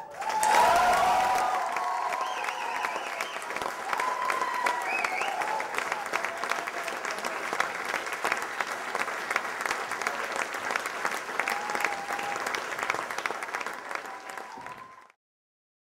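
Audience applauding with steady dense clapping, voices calling out over it in the first few seconds. The applause cuts off suddenly near the end.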